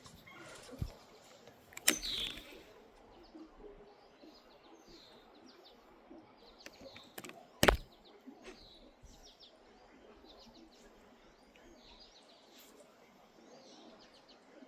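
Small birds chirping and calling over a quiet outdoor background, with two sharp clicks, one about two seconds in and a louder one a little before eight seconds in.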